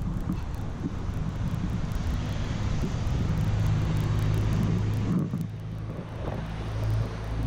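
Road traffic on the street below: a low steady engine hum under the rush of passing vehicles, the rush dropping away about five seconds in.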